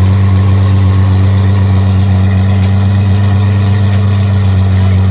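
A car engine idling steadily, a loud, even low hum that holds the same pitch throughout.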